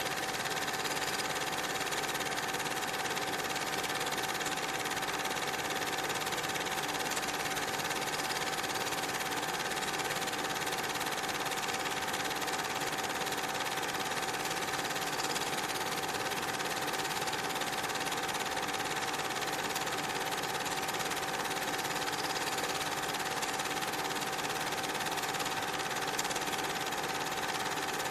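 Film projector running: a steady mechanical whirr with a faint constant whine.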